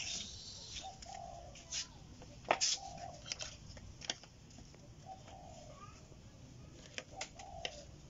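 A bird cooing in short low calls, about one every two seconds, mixed with sharp clicks of multimeter test leads and clips being handled on the bench; the loudest click comes about two and a half seconds in.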